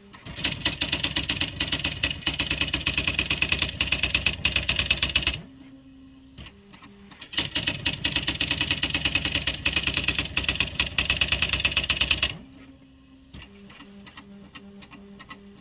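Smith Corona XE-1950 electronic typewriter printing by itself in demo mode: two runs of rapid, even key strikes of about five seconds each, with a quieter stretch of low whirring between them and again near the end.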